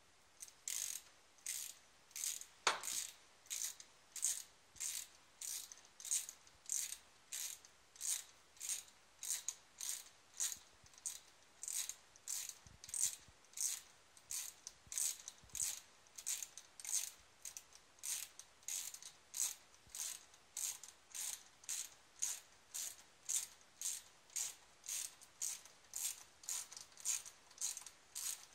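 Hand ratchet wrench with an 8 mm socket clicking in a steady rhythm of about two strokes a second as it tightens a fastener on a cold air intake.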